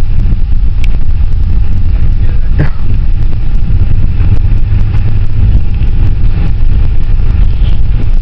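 Cabin noise inside a moving jitney passenger van: a steady low engine and road rumble.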